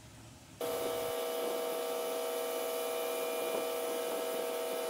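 Large shop fan running steadily: a constant hum with a few held tones over a wash of air noise, starting suddenly about half a second in.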